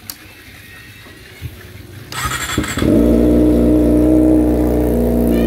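Kawasaki ZX25R's 250 cc inline four-cylinder engine, breathing through a Yakuza R7 underbelly aftermarket exhaust, starting up about two seconds in and settling into a loud, steady neutral idle at low rpm, not yet revved.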